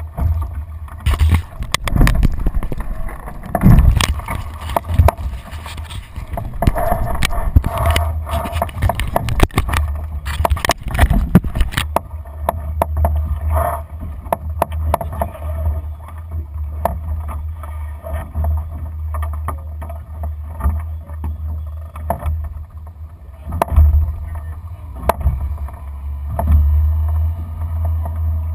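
Wind buffeting the deck-mounted camera's microphone on a Lightning sailing dinghy under sail, with water washing along the hull. Frequent sharp knocks and clicks from the boat's fittings and the moving crew are heaviest in the first twelve seconds.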